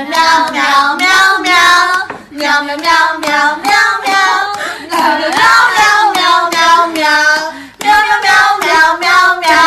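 A high-pitched voice singing a run of short, bending notes with brief breaks between them.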